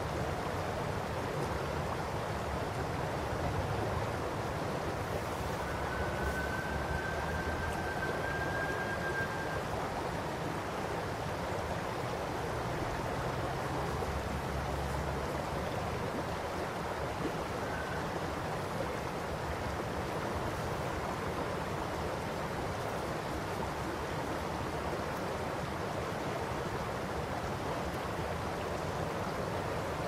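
Shallow river flowing over a gravel and stone bed: a steady babble of running water.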